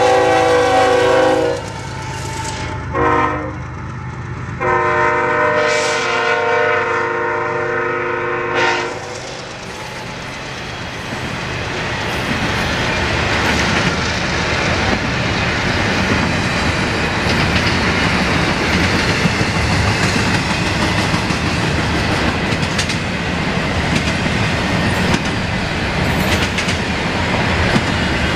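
CSX freight locomotive's air horn sounding three blasts, long, short, long, the last ending about 9 s in, the close of the grade-crossing signal. After that comes the steady rolling rumble and clatter of double-stack container cars passing on the rails.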